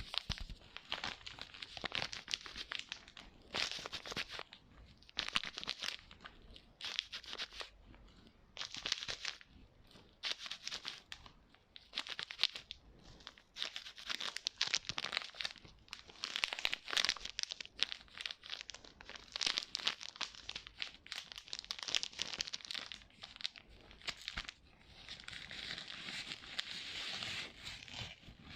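Close-miked ASMR tapping and scratching on a small prop: short bursts of rapid, fine clicks about once a second, turning into a steadier rustle near the end.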